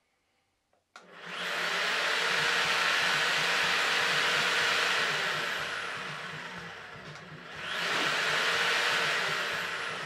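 A click from the no-volt-release switch's start button about a second in, then a corded power tool's motor spinning up with a rising whine and running steadily. Its speed falls away from about five seconds in, then it spins up again near eight seconds.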